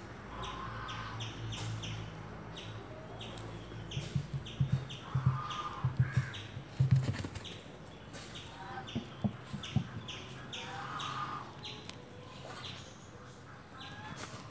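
Small birds chirping over and over, short falling chirps about twice a second, with a few harsh crow-like caws now and then. A cluster of low thumps comes a few seconds in and again later.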